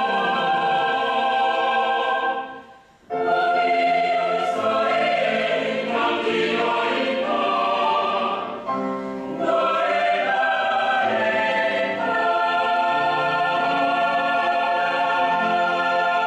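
Mixed choir singing a choral song. The voices fade to a brief break about three seconds in, then come back in, and the piece closes on a long held chord over the last several seconds.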